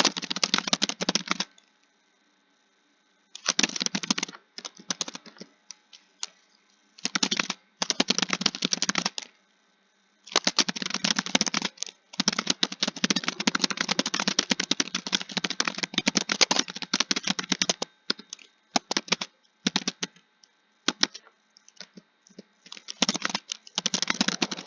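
Typing on a computer keyboard: fast runs of keystrokes in bursts with short pauses between them, one long continuous run in the middle and a few scattered single keystrokes near the end.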